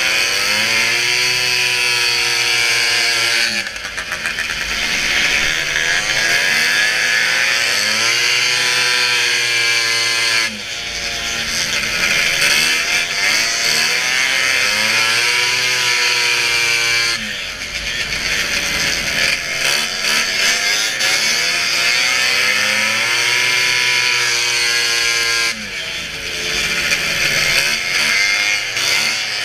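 Racing snowmobile engine at high revs. Its pitch keeps rising and falling, and about four times, roughly every seven seconds, it drops off briefly as the throttle is let off, then climbs back up.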